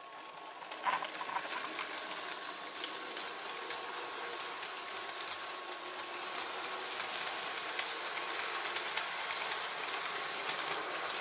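Model train running out of the station along the layout's track: a steady hissy rumble of motor and wheels that swells about a second in, with faint scattered clicks.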